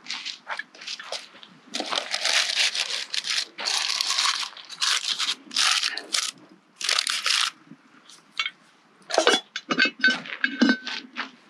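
Shovel scraping and crunching through campfire coals in rough strokes, then a few sharp metal clinks, one ringing briefly, as the camp oven is bedded in the coals.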